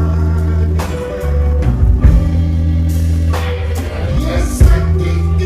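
Blues band playing live: electric bass holding low notes under a drum kit, with a voice or harmonica carried through the microphone on top.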